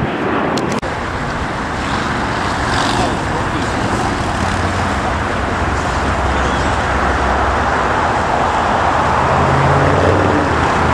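Steady jet engine noise from an airliner on the runway, with a brief dip where the sound cuts about a second in.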